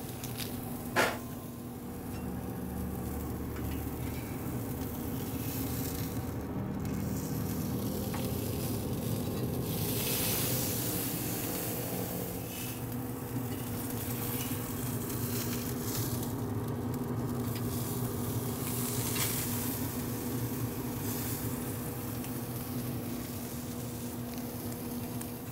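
Ground-beef burger patty sizzling steadily as it sears on hot grill grates, over a steady low hum. A short click about a second in.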